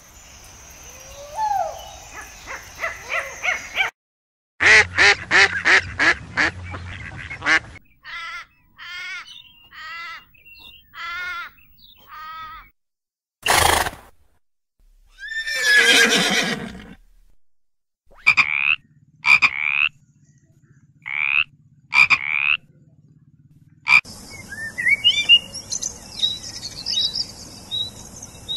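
A string of different animal calls cut one after another: short repeated calls and croak-like pulses in the first half, a horse's whinny about halfway through, then quick sweeping bird chirps and a sparrow chirping over a steady high hiss near the end.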